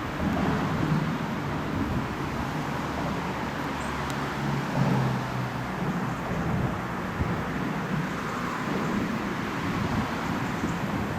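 A train running past, a steady rumble with a low hum.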